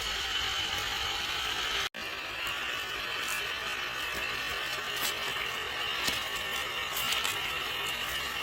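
Traxxas TRX-4 scale crawler's motor and gear drivetrain whirring steadily with a high whine, with scattered sharp clicks. The sound cuts out for an instant about two seconds in.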